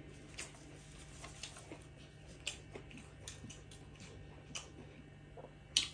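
Close-up mouth sounds of someone chewing french fries dipped in garlic sauce: about ten separate wet clicks and smacks over a faint hum, the sharpest one just before the end.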